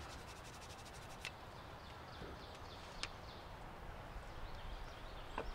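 A few sharp light clicks and taps from a knife and small sharpening kit being handled, over a faint steady outdoor background. A quick run of faint high ticks comes in the first second.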